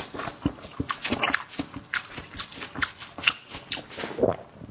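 Close-up mouth sounds of eating: wet chewing and lip smacking in an irregular run of short clicks, several a second.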